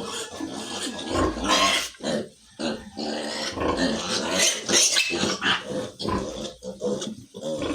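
Piglets squealing loudly and harshly, on and off with short breaks, as they are held for a multivitamin injection.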